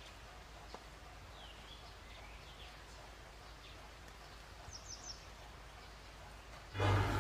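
Quiet room background with a few faint, high chirps. Music starts abruptly a little before the end, with the channel's intro card.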